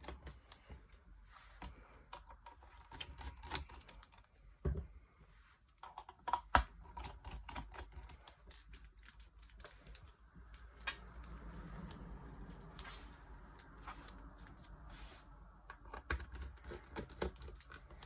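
Small irregular clicks and ticks of a pentalobe screwdriver taking the screws out of a MacBook Pro's bottom cover, with a faint stretch of scraping in the middle.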